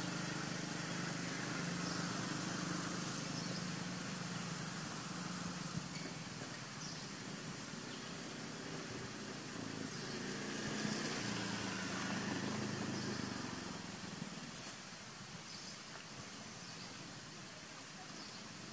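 Steady outdoor background hiss with a low, distant hum that swells twice, in the first few seconds and again about ten seconds in.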